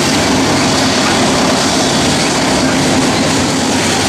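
Loaded coal hopper cars of a freight train rolling past, steady noise of steel wheels on the rails.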